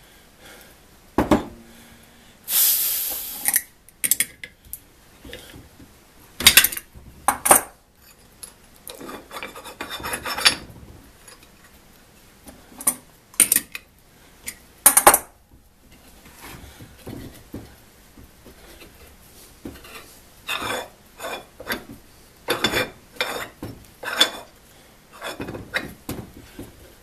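Metal parts of a small cast-iron Craftsman Jr. machinist vise clinking and knocking against each other and the bench, with short scraping rubs in between, as the vise is put back together.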